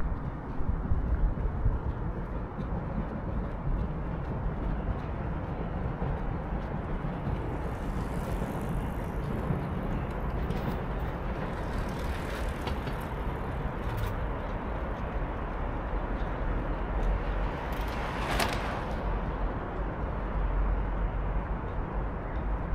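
Outdoor city ambience with a steady low rumble of distant traffic, and a brief rushing noise that swells and fades about eighteen seconds in.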